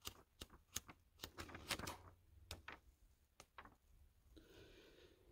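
Pages of an old paperback book being flipped: a quick series of soft, papery flicks that stop a little before the end.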